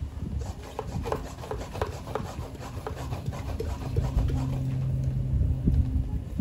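Hand-held plastic pump sprayer being worked: a quick run of short rasping strokes, about three a second, for roughly three seconds. After that a low steady hum comes in and fades again near the end.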